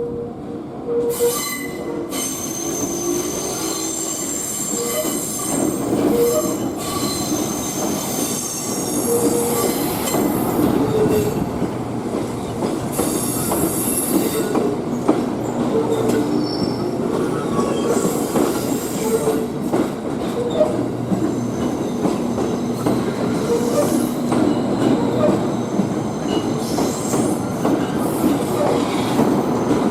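Electric multiple-unit train moving slowly through the depot yard during shunting: a continuous rumble from the running gear, with wheel flanges squealing in high tones that come and go throughout.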